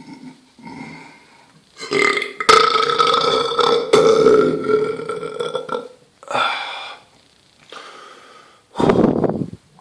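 A person belching: one long, loud belch of about four seconds, followed by three shorter belches, the last a loud, lower one near the end.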